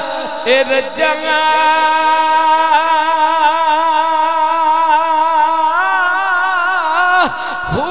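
A man's voice holding long sung notes with strong vibrato, part of a melodic chanted recitation of Punjabi devotional verse. The pitch steps up about six seconds in, then drops in a quick downward glide near the end before a new held note begins.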